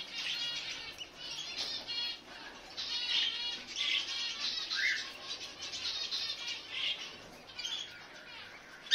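Hatchling budgerigar chicks giving raspy begging chirps in quick repeated runs.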